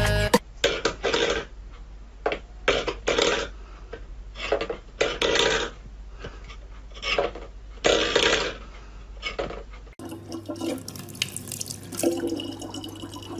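Stainless steel pet bowl scraping and clattering on a wooden floor in a dozen short bursts. After a cut, a tap runs a thin stream of water into a plastic bottle.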